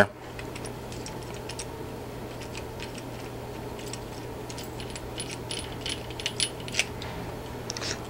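Faint scattered metal clicks and taps as a fiber cable mini bracket is handled and its knobbed aluminium captive bolt is unscrewed to take the bracket apart, over a steady low hum.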